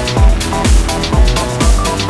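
Electronic dance music with a steady kick-drum beat, about two beats a second, over held synth chords.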